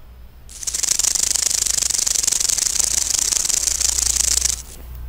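Rattlesnake's tail rattle buzzing, a fast, dry, steady rattle that starts about half a second in and stops shortly before the end.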